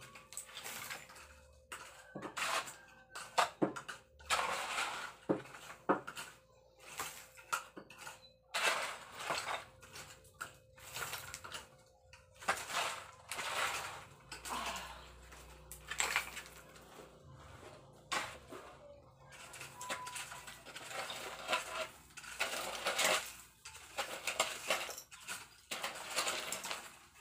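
Metal shovel scraping and clinking against soil and broken concrete rubble, in irregular repeated strokes about every second.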